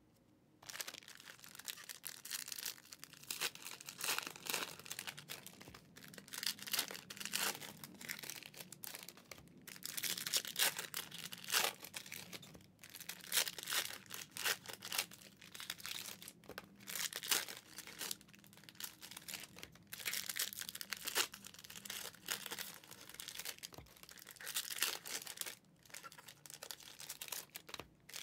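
Trading-card pack wrappers being torn open and crinkled, with cards being handled: irregular rustling and crackling that comes and goes.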